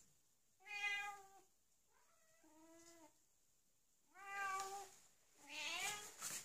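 Domestic cat meowing several times, short calls about a second apart, the last one rising in pitch.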